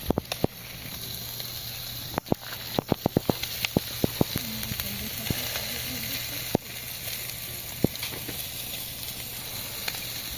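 Wood campfire burning, crackling with sharp pops over a steady hiss; the pops come thickest a couple of seconds in.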